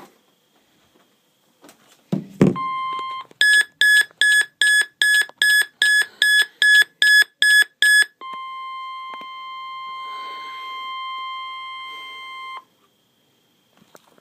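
Weather alert radio sounding a severe thunderstorm warning. A thump, then a brief steady tone, then rapid high beeps, about three a second for some five seconds, then the steady warning alarm tone near 1 kHz for about four seconds, cutting off.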